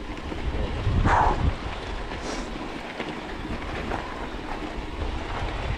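Mountain bike rolling fast downhill on a rocky dirt road: a steady rumble and rattle of the tyres over loose gravel and stones. A brief louder sound stands out about a second in.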